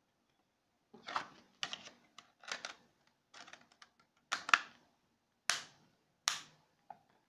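Plastic clicks, scrapes and snaps of a smartphone being handled as its battery is fitted and the back cover pressed on, with several sharp snaps in the second half.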